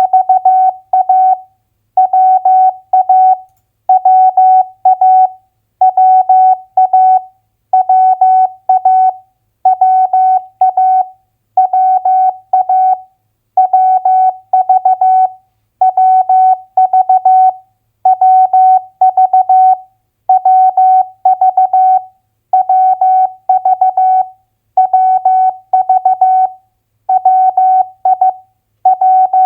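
Morse code sent as a single keyed audio tone at 15 words per minute, spelling two-letter US state abbreviations. The dots and dashes come in short groups, one abbreviation about every two seconds, with a brief silence between groups.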